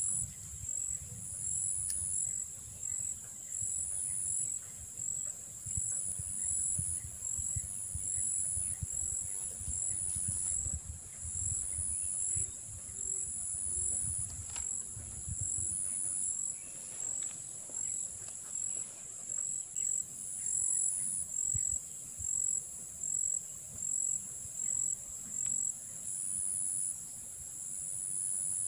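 Insects calling steadily: a continuous high-pitched trill, with a second, higher call pulsing about once a second over it. A low rumble underneath fades out around the middle.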